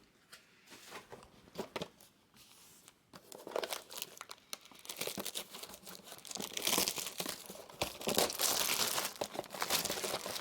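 Crinkling and tearing of trading-card packaging being handled and opened. It starts as a few soft rustles and clicks, then turns into steady loud crinkling over the second half.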